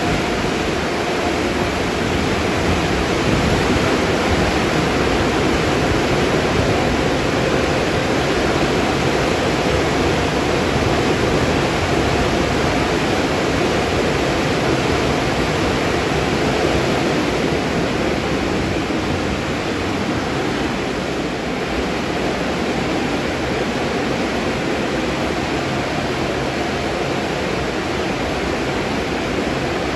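Automatic tunnel car wash running, with water spraying and cloth wash brushes spinning against a car: a steady, even rushing noise.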